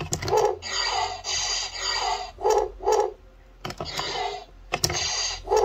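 Electronic sound effects from the Laser Blade Buzz Lightyear figure's small built-in speaker, in a string of short repeated bursts, with several sharp clicks between them.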